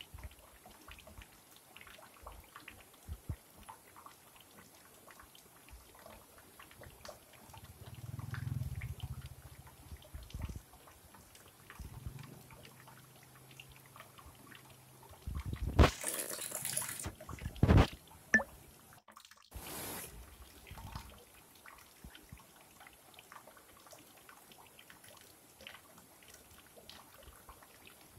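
Stream water trickling and splashing over rocks, with a light scatter of drips. Just past halfway a louder rushing noise lasts about a second, followed by a sharp knock.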